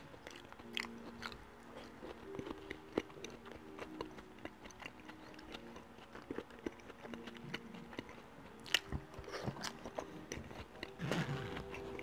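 Close-miked chewing of a mouthful of cooked vegetables: soft wet mouth clicks and small crunches at irregular intervals, a little louder near the end. Faint background music sits underneath.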